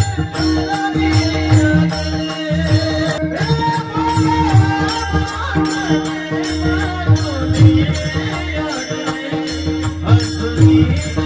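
A man singing a Marathi devotional song, his melody wavering over a held drone, with small metal percussion striking a steady beat and a drum underneath.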